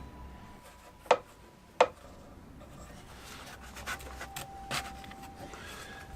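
Two sharp knocks of small parts being handled, a little under a second apart, followed by faint rubbing and scraping as pieces are worked by hand.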